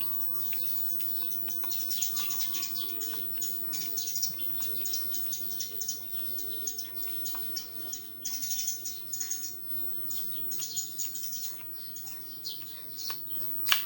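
Socket ratchet clicking in short irregular bursts as the top bolt of the handguard mount on a Honda CRF300L handlebar is worked loose, over a faint steady hum.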